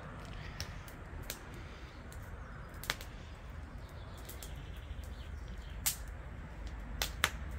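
Outdoor ambience: a steady low rumble with scattered short, sharp clicks, a few of them close together near the end.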